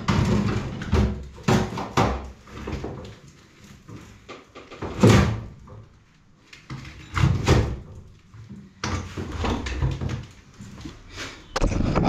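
A run of knocks and clunks from a heavy wall-hung combi boiler being worked onto its mounting bracket by hand, the loudest clunk about five seconds in. Near the end there is handling noise from the camera being picked up.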